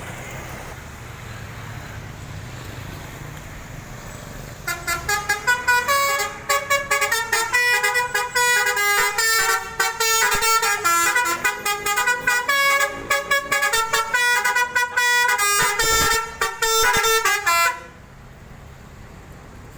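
Bus telolet horn, a Basuri multi-tone musical horn, playing a fast melody of short, quickly changing horn notes. It starts about five seconds in and cuts off sharply near the end. Before it there is a low rumble.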